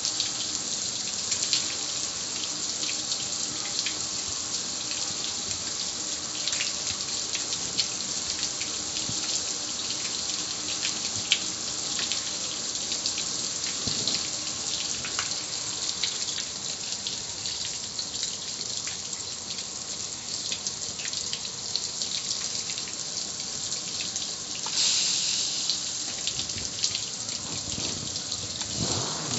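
Water from a garden hose spray nozzle hissing steadily as it spatters on a black metal gas grill and drips off it, briefly louder about 25 seconds in.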